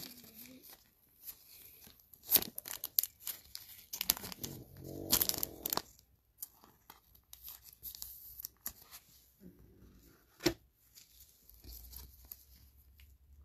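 Gloved hands handling trading cards: crinkly paper-and-plastic rustling with a few sharp clicks, a longer rustle about four seconds in, and one sharp click near the end.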